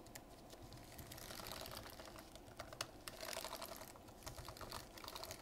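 Keys of a 2017 13-inch MacBook Pro's butterfly keyboard being pressed rapidly, giving faint, quick clicks. This is a test of the liquid-exposed keyboard: no key sticks or crunches, though the keys don't sound perfect.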